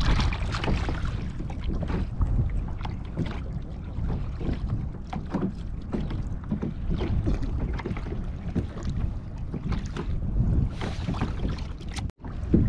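Wind rumbling on the microphone, with small irregular splashes of water lapping against a kayak hull. The sound cuts out for an instant near the end.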